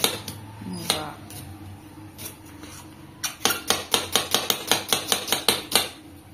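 Chef's knife slicing red onion on a marble chopping board, the blade knocking on the stone with each cut. One knock about a second in, then a fast, even run of knocks, about five a second, that stops near the end.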